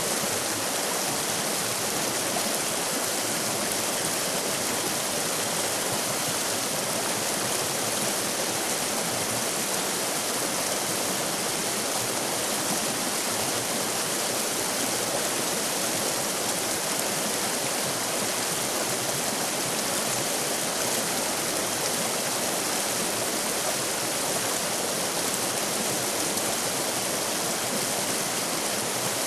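River rapids: water rushing over rocks in a steady, unbroken hiss.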